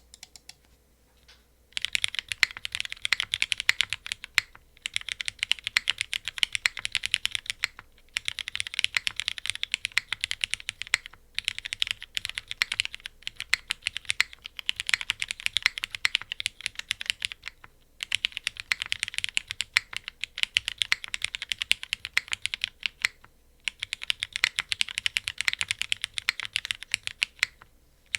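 Fast typing on a plateless Geonworks F2-60 mechanical keyboard with Cherry MX Black linear switches and GMK keycaps: a dense stream of keystroke clacks, starting about two seconds in and coming in runs of a few seconds with brief pauses between.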